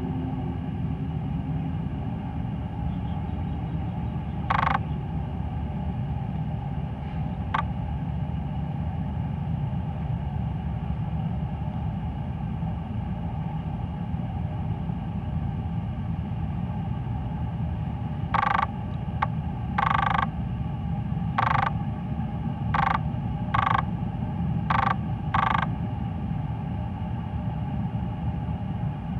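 Steady low rumble of engines, with a run of about eight short, sharp bursts of sound in the second half.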